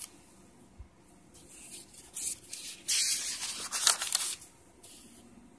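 Lined notebook paper rustling as pages are turned by hand: a run of short rustles over a few seconds, the loudest near the middle.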